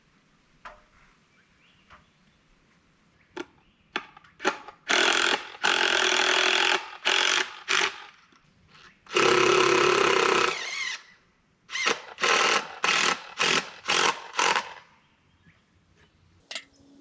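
A power tool run in a series of short bursts, with one longer run of about two seconds in the middle, as when working on wood.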